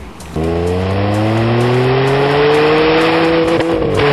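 Car engine held at raised revs and heard at the exhaust tip, cutting in suddenly, its pitch climbing slowly, then dropping back near the end.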